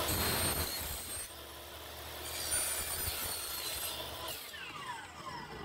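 Electric miter saw's blade cutting through an aluminium angle section, a high-pitched metal-cutting whine in two spells. Near the end the motor winds down with a falling whine.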